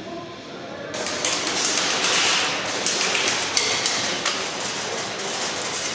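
Rapid clatter of airsoft guns firing and BBs striking surfaces, starting suddenly about a second in and going on as a dense patter of clicks.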